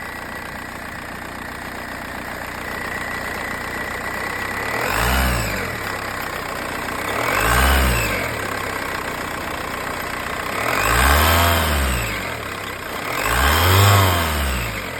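Volkswagen Golf 4 engine idling, then revved four times, the pitch climbing and falling back each time; the last two revs are the longest and loudest.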